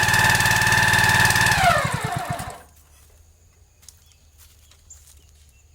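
A small engine running steadily, then shut off: its pitch falls as it spins down and it stops about two and a half seconds in, leaving a faint low hum and a few light ticks.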